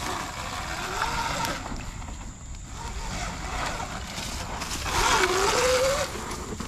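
Sur Ron X electric dirt bike's motor whining as it rides past, the pitch rising as it accelerates about five seconds in, when it is loudest, with tyre noise over the dirt.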